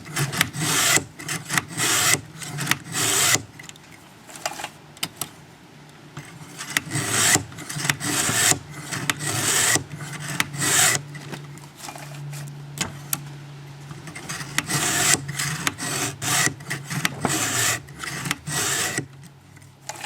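Chainsaw chain cutter teeth being hand-filed in a filing guide: a run of repeated rasping strokes of file on steel, in groups with short pauses, to bring all the teeth to the same length. The strokes stop about a second before the end.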